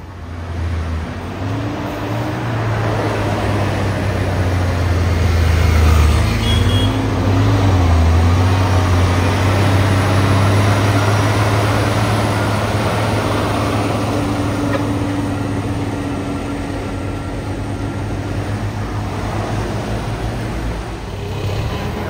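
Heavy diesel truck engine labouring up a steep hill as it passes close, a low steady drone that builds to its loudest about six seconds in and then slowly fades.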